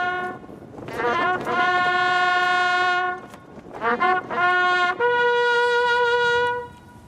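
A lone bugle sounding a slow ceremonial call: long held notes on one pitch, each led in by short quick notes, rising to a higher held note about five seconds in that ends just before the close.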